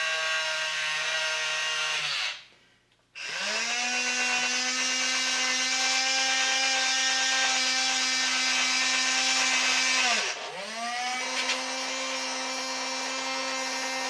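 Small electric gear motor of a Roger Robot toy whining as it drives the arms apart. It stops about two seconds in and spins up again a second later with a rising whine. About ten seconds in it slows briefly and picks up again.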